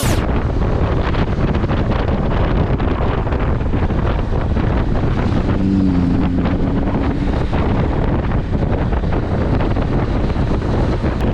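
Heavy wind buffeting the microphone while travelling in a moving vehicle, a steady loud rush with the vehicle's running noise under it. A brief low tone sounds about six seconds in.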